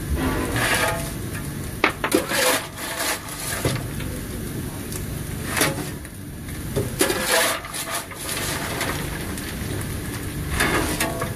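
Fireman hand-firing AC16 steam locomotive 221A: a steel coal shovel scraping up coal and swinging it into the firebox, about five rasping strokes a couple of seconds apart, over a steady low rumble in the cab.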